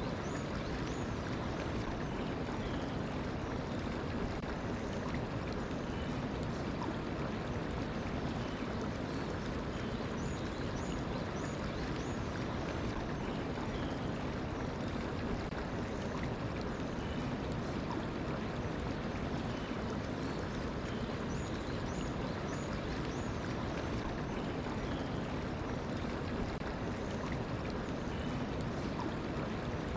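Mountain stream flowing steadily, with short runs of high bird chirps over it, three times.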